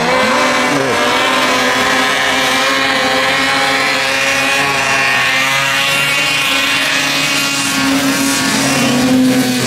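Several racing snowmobiles launching together and running flat out up a hill, their engines held at high revs in a loud, steady drone that comes in abruptly and rises slightly near the end.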